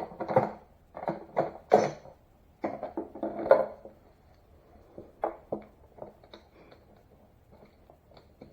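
Metal parts and bolts clattering and knocking as they are handled, with a run of sharp knocks in the first few seconds, then scattered lighter clicks.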